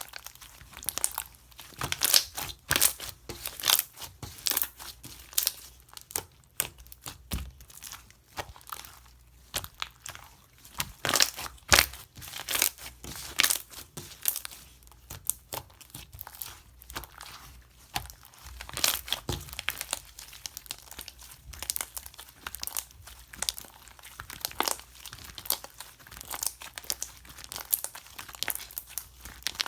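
Slime being squeezed, stretched and pressed by hand, giving irregular clusters of quick clicks and pops.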